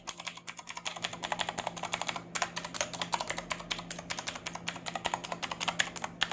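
Typing on a mini mechanical keyboard with Outemu blue clicky switches: fast, irregular clacking keystrokes with a short pause about two seconds in.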